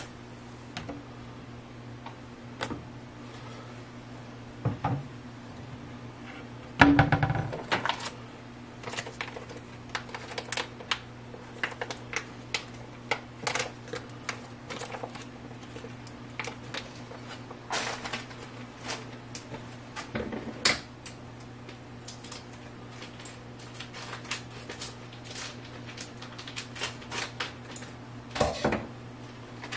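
Kitchen handling noises: scattered light clicks and knocks of things being picked up and set down, with one louder clatter about seven seconds in, over a steady low hum.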